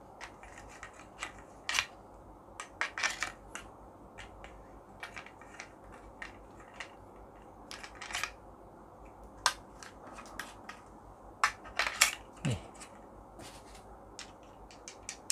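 Irregular clicks, taps and knocks of a small aluminium-alloy tripod and its mount being handled and fitted together, the loudest knock about twelve seconds in.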